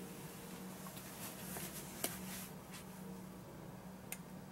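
Quiet room tone: a steady low hum with faint hiss, and two small sharp clicks, one about two seconds in and one near the end.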